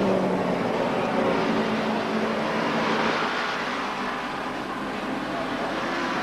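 Honda production racing motorcycle at full racing speed, its engine note shifting in pitch as it is revved and changes gear. It is loudest at the start as the bike goes by close.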